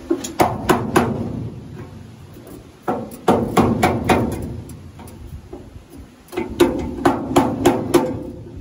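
Hammer blows on a cold chisel cutting into the rusted steel sill of a 1971 Ford Falcon XY ute, each strike a sharp metallic clank with a brief ring. The blows come in three quick runs of four to six strikes with short pauses between.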